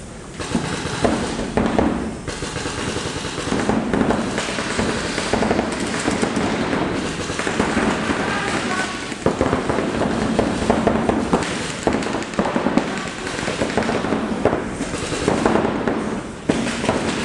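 Paintball markers firing in rapid, overlapping strings of shots, paintballs popping against the field, with voices shouting over the firing.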